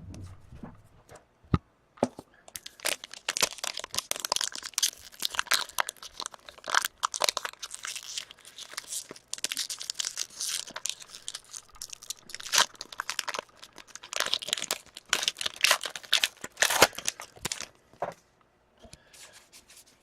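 Hockey card pack wrappers being torn open and crinkled: a long run of crackling and tearing with many sharp clicks. Quieter at the start and end.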